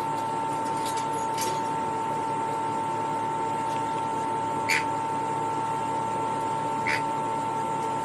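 White cockatoo nibbling a strand of dry spaghetti held in its foot: a few short crunching clicks, the loudest about halfway through and another near the end. Under them runs a steady hum with a constant high whine.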